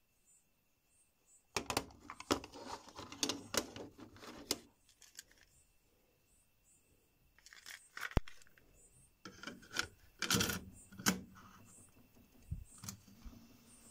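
Clicks and rattles of a plastic cassette tape and its clear plastic case being handled: the cassette is taken out of the case and loaded into a Sony Walkman in a few short bursts of clatter, with a sharp click around the middle and soft knocks of the player's buttons near the end.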